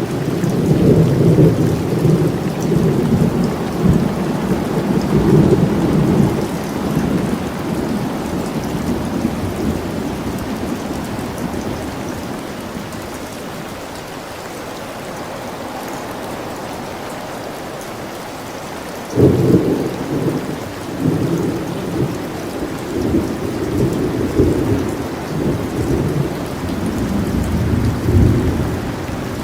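Thunderstorm: steady rain with rolling thunder. A long rumble fades out over the first several seconds; about two-thirds of the way through a sudden thunderclap breaks in, followed by more rumbling.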